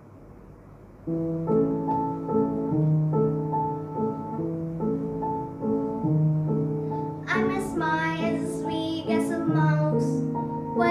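An upright piano starts a gentle accompaniment about a second in, playing repeated low notes under a melody, and a young girl's voice comes in singing over it about seven seconds in.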